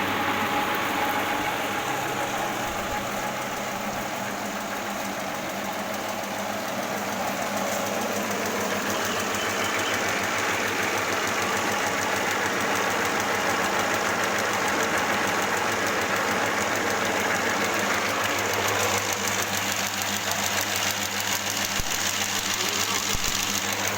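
Two-cylinder stainless-steel soybean processing machine for tempe, running steadily on a test run with a dense, continuous rattle and hum.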